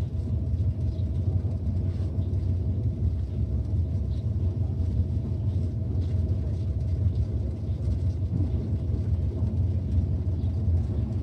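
Pickup truck on the move: a steady low rumble of engine and road noise.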